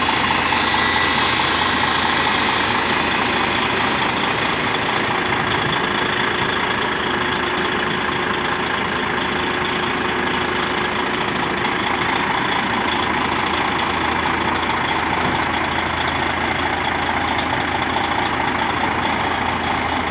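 Heavy truck diesel engine idling steadily, with a high hiss that stops about five seconds in.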